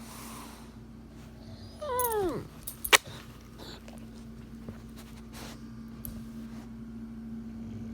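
A pet lets out one short whining call about two seconds in, falling steeply in pitch, followed by a sharp click. A steady low hum runs underneath.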